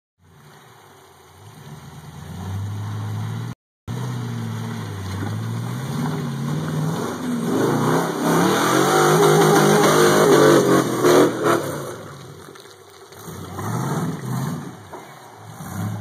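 Rock buggy's LS1 V8 engine revving in repeated bursts as it works up a steep rock ledge, its pitch climbing and dropping. It is loudest and hardest-driven through the middle, then backs off near the end. The sound cuts out completely for a moment just before four seconds in.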